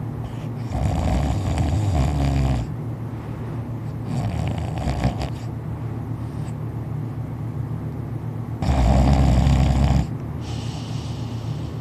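Heavy snoring from a deeply asleep sleeper: three loud snores about four seconds apart, the last the loudest, with quieter breaths between them.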